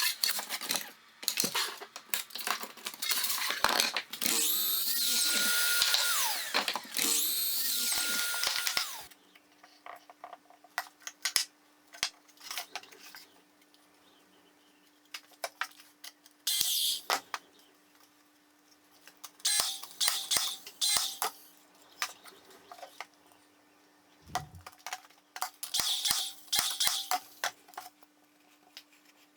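Electric drill running in several trigger pulls, its motor spinning up, holding speed and winding down each time. It is followed by quieter clicks and knocks of tools and wood being handled, with a few short bursts of the tool.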